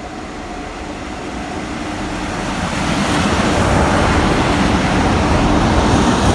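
Two Class 47 diesel-electric locomotives, each with a Sulzer twin-bank V12 engine, approaching through the station at the head of a passenger train. The engine rumble and wheel noise grow steadily louder over about three seconds, then hold steady as the locomotives draw near.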